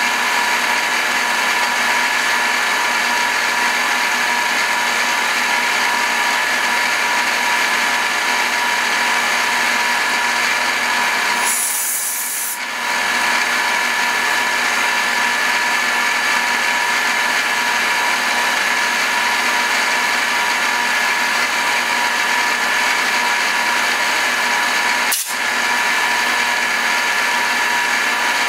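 Bridgeport milling machine running steadily with a constant whine as its end mill cuts a fuller groove into a Bowie knife blade while the table feeds. A brief hiss about halfway through and a single sharp click near the end.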